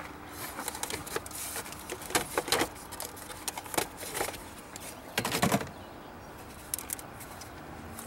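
Plastic top cover of a VW 2.0 TSI engine being pulled off its mounts by hand: a string of plastic clicks and rattles, with a louder clatter a little after five seconds in.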